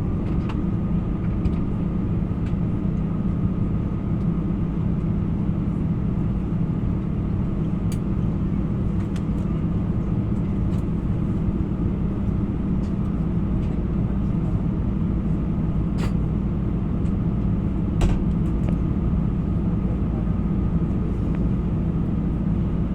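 Steady low rumble and hum inside the cabin of an Airbus A321 on the ground, with a faint high tone over it and a few light clicks.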